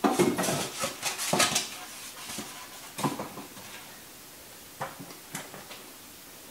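Handling noise from unpacking a respirator turbine unit: a quick run of rustles and knocks as the boxed unit is lifted out, then a few single clunks as it is set down on the table and its cord is handled.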